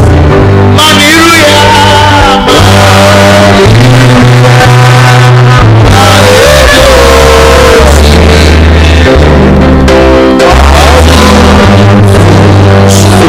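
Loud live church music: bass and guitar band with singing.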